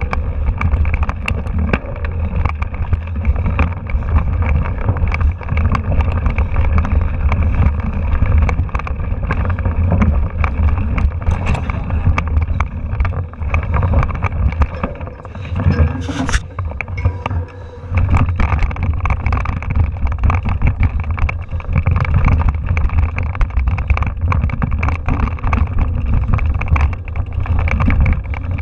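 Mountain bike riding fast over rocky singletrack: a steady clatter and rattle of the frame and parts over the rough ground, with heavy wind rumble on the handlebar-mounted camera's microphone.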